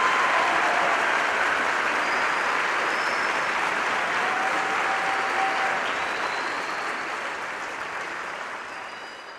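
Large concert audience applauding, a dense, sustained clapping that fades out near the end.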